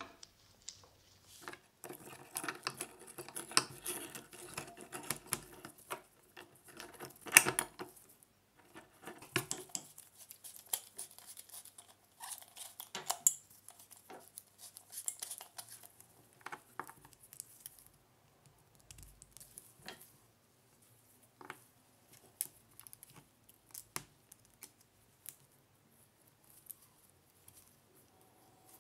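Small metal parts and hand tools of a pneumatic pruning scissors being handled on a workbench: quick clicks, scrapes and light taps, busiest in the first third, with one sharp metal knock about seven seconds in, then scattered single ticks.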